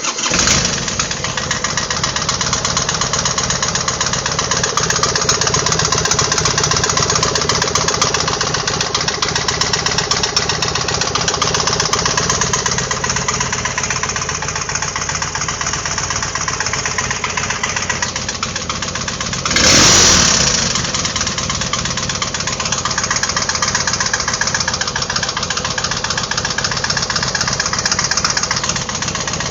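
Harley-Davidson Sportster V-twin engine running with an appalling knocking noise, with one brief louder surge about two-thirds of the way in. The noise appeared after a rebuild, with slightly undersize hypereutectic pistons; the owner wonders whether it is piston slap.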